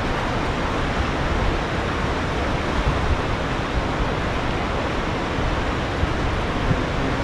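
Steady, loud rushing of water released from a dam into the tailwater, with a deep rumble underneath.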